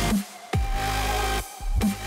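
Background electronic dance music with heavy bass, hits that drop in pitch, and a held wavering tone, cut by a short pause about half a second in.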